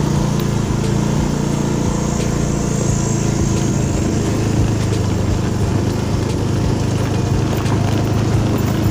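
Small motorcycle engine running at a steady speed while being ridden.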